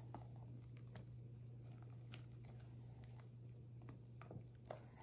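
Near silence: faint soft squishing and scraping as a silicone spatula folds thick whipped cream in a stainless steel bowl, with a few light taps against the bowl over a steady low hum.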